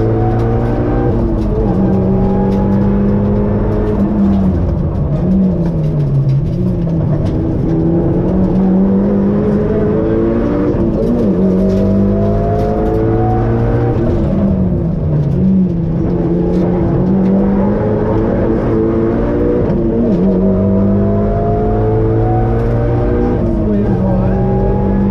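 Rally car engine heard from inside the cabin, accelerating hard through the gears: the revs climb steadily in each gear and drop at each upshift. Three times the revs fall away and dip before the engine pulls up through the gears again, as the car brakes and downshifts.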